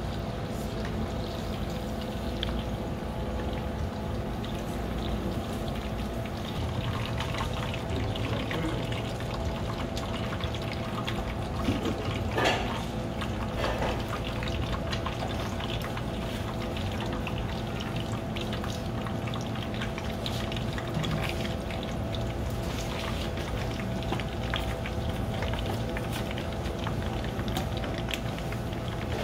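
Hot oil sizzling and crackling steadily as battered tempura deep-fries in a pan. There are a couple of brief knocks from the utensils midway.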